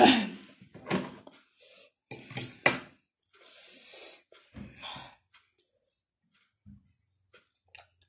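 Close-miked eating sounds: instant noodles eaten by hand, slurped and chewed, with sharp hissing breaths in the first five seconds, then only faint mouth clicks.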